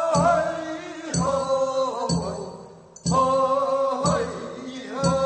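Gyeongsang-province sangyeo-sori, the Korean funeral bier-bearers' song: sung in long, drawn-out notes over a steady beat struck about once a second.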